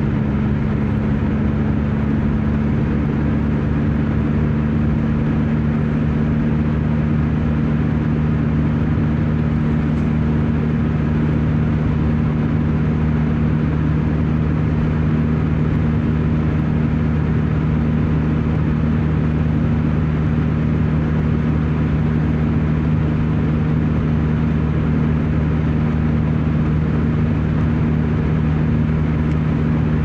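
Car driving on a highway, heard from inside the cabin: a steady, unchanging drone of engine and tyre noise with a low hum.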